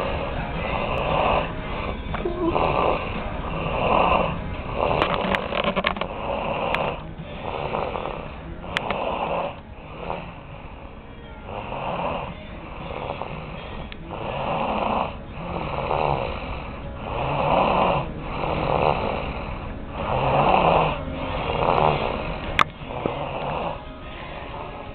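A woman snoring in her sleep, a rhythmic rasping snore on each breath about once a second; the snoring comes from her being ill. A sharp click sounds near the end.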